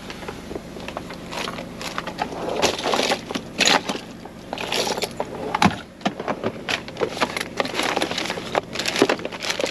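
Rummaging in a truck cab's storage compartment: irregular clicks, knocks and scrapes of hard plastic and loose items, with rustling of packets and bags.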